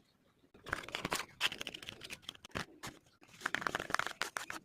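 Makeup packaging being torn open and crinkled by hand: two stretches of dense tearing and crackling with sharp clicks, beginning about half a second in, with a short pause before the second.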